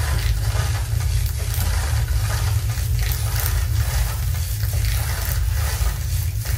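Electroacoustic sound collage played over a loudspeaker: a long, steady band of dense crackling, sizzling noise over a deep continuous rumble, made by layering processed recordings of everyday found objects.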